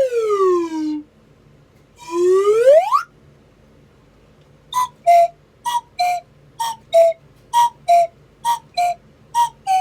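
Slide whistle swooping down in pitch, then back up. About five seconds in, a cuckoo whistle sounds six two-note cuckoo calls, a higher note then a lower one, each call under a second apart.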